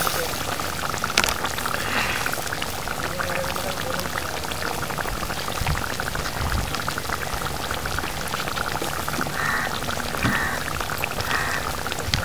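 Fish curry simmering in an open metal pan, with a steady patter of small bubbles popping at the surface.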